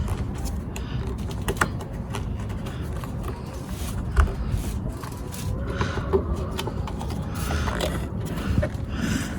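Scattered clicks and knocks of a plastic air filter cover being worked into place on a Toro Recycler mower's engine, with a sharper knock about four seconds in.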